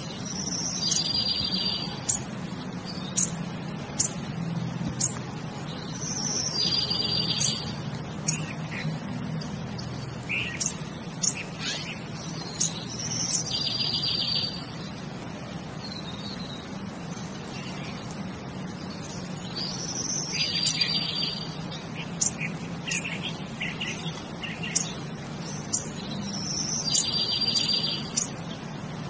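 Young owl (owlet) calling five times, about every six seconds; each call is a short note followed by a longer rasping call about a second long. Faint sharp ticks are scattered between the calls.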